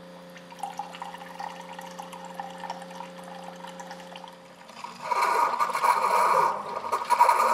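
Keurig single-serve brewer running with a steady hum, then hot cocoa pouring from the spout into a glass mug, much louder from about five seconds in.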